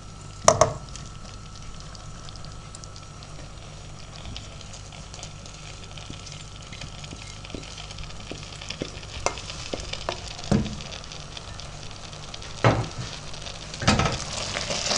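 Wooden spoon stirring crumbly cottage cheese and sheep's curd in a stainless steel pot, over a soft sizzle of melted butter on a low gas flame. The spoon knocks sharply a few times, and the scraping gets busier and louder near the end.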